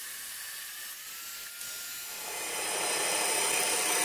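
Abrasive chop saw cutting through the steel handle of a spare-tire winch retainer: a steady, hissing grind that grows louder about two seconds in.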